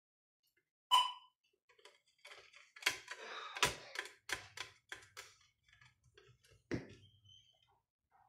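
Light clicks and knocks of circuit boards and small parts being handled on a workbench, with a short ringing ping about a second in and a quick run of clicks in the middle.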